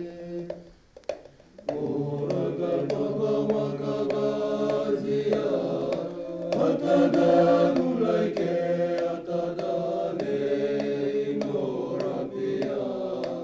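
Background music with held, chant-like vocal tones over a soft ticking beat, breaking off briefly about a second in.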